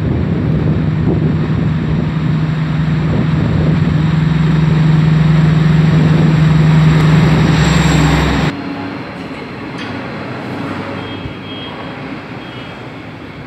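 Class 218 diesel-hydraulic locomotive's MTU 12V 956 TB11 diesel engine running with a steady low drone, loudest as it passes directly beneath. About eight and a half seconds in the engine sound drops off abruptly, leaving the quieter rumble of the coaches rolling by.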